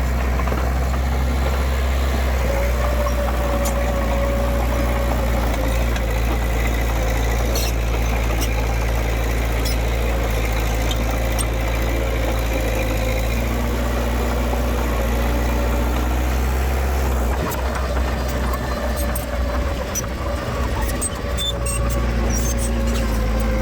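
Diesel engine of heavy earthmoving machinery running steadily as a low drone, with a faint whine and scattered sharp clicks and clanks. The drone dips and wavers about 17 seconds in, then steadies again near the end.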